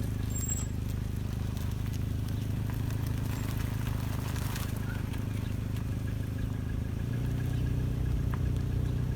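Mazda 6 engine running steadily, its note shifting slightly about seven seconds in. Faint ticks sit over the drone: the knock that the owner hears in every gear and at idle.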